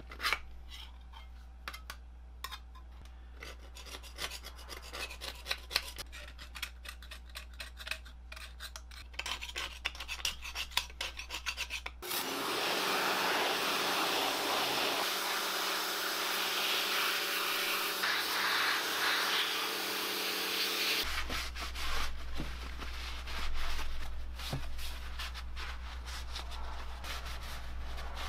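Putty knife scraping softened, stripped paint off a worm gearbox housing in many short strokes, over a steady low hum. About twelve seconds in this gives way to the steady hiss of a water jet spraying the housing. About nine seconds later it goes back to rubbing and wiping with the hum.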